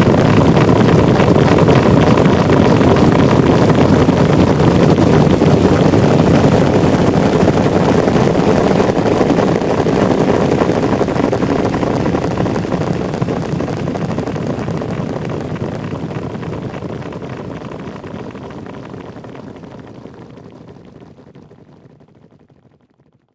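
Horse stampede: a herd galloping, its many hoofbeats merging into a dense, loud rumble that fades away gradually over the last dozen seconds.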